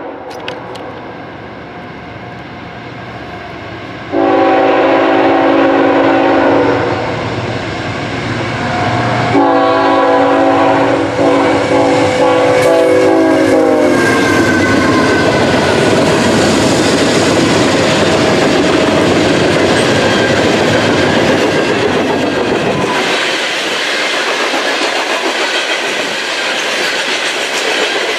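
Norfolk Southern freight train approaching with its locomotive air horn sounding: a blast ending just after the start, another about four seconds in, and a longer one held from about nine seconds in. The locomotive then passes with engine and wheel noise, and the freight cars roll by with a steady clickety-clack of wheels on the rails.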